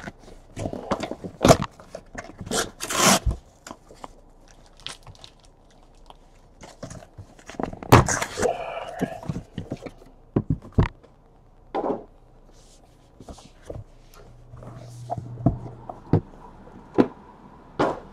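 Cardboard trading-card box being opened and unpacked by hand: paper rustling, with scattered scrapes, taps and knocks of cardboard.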